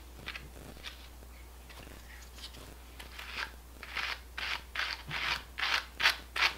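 Two dog brushes used as hand cards, drawn against each other through dog hair to card it for spinning: a run of brushing strokes, faint at first, then about two a second and louder from about three seconds in.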